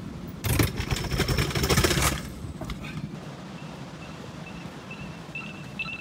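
Electric scooter rattling down concrete stairs: a dense clatter of quick impacts lasting about a second and a half. Then a faint, high, repeated beeping from a Lime scooter's alarm, growing louder near the end.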